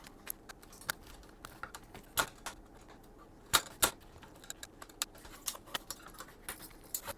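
Small screwdriver clicking and tapping irregularly as tiny screws are driven into a 3D-printed plastic drive bracket.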